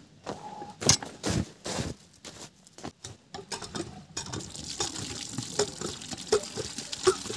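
Footsteps and knocks as a plastic bucket is carried and set down, then, from about four seconds in, water running steadily from a pipe spout into the bucket.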